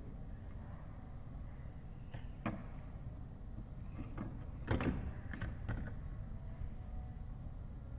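Fidget spinner being handled: a few light clicks and knocks over a steady low rumble, the loudest a little over halfway through.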